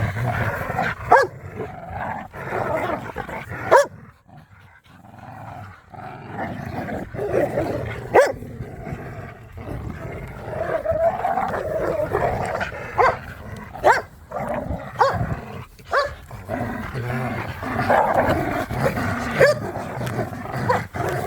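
Pit bulls growling and snarling continuously while they tug and wrestle over a rope toy in play, with a sharp bark now and then. The growling drops away briefly about four seconds in.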